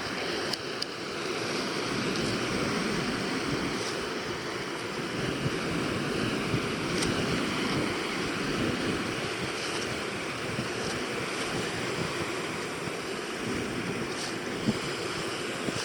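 Steady rushing wind noise on the microphone, with a few faint clicks scattered through it.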